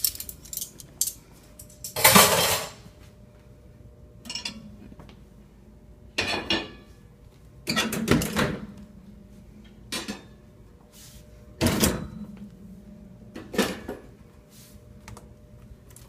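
Dishes clattering and knocking as they are taken out of a dishwasher and shaken, in about ten separate bursts a second or two apart. The loudest and longest clatter comes about two seconds in.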